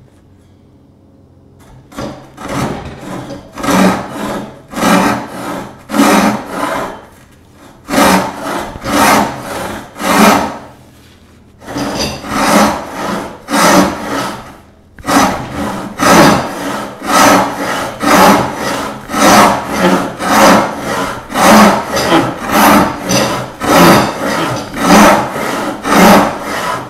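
Roubo-style frame saw resawing a walnut board a little over 4 inches wide by hand, its blade rasping through the wood in repeated back-and-forth strokes. The strokes start about two seconds in and come one to two a second, with a short break about ten seconds in. The saw cuts fast, just eating the wood.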